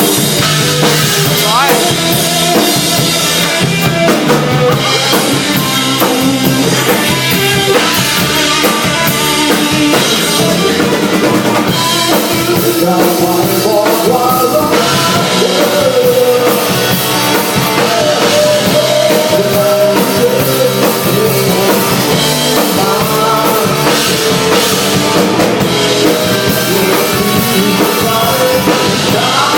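Live band playing a rock song at a sound check, with a full drum kit (kick, snare and rimshots), guitar and bass, and a vocal line.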